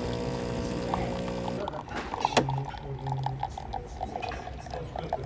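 Coffee machine dispensing coffee into a mug: its pump hums steadily, then about a second and a half in the sound turns to an uneven pulsing, with a sharp click shortly after.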